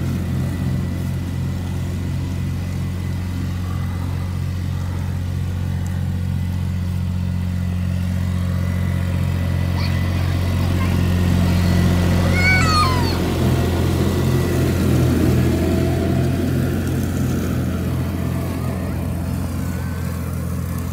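Yanmar diesel compact tractor engine running steadily as the tractor drives and mows, growing a little louder about halfway through. A brief high squeal rises and falls about twelve seconds in.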